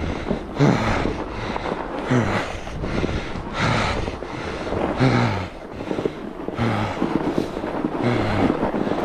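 Fat bike riding over packed snow: a constant rush of wind on the microphone and tyre noise, with the rider's heavy, voiced breaths coming about every second and a half.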